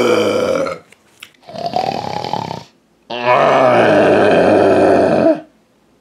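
A man's voice doing an exaggerated, comedic snore for a sleeping puppet. A loud snore trails off about a second in, a shorter, quieter one follows, and then a long, loud snore lasts about two seconds.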